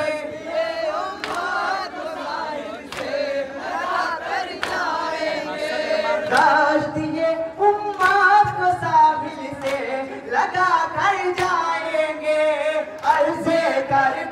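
Male voices singing a nauha (Muharram lament) in Urdu, a lead reciter on a microphone with a group of men joining in. Sharp chest-beating slaps of matam land in a steady beat about every second and a half.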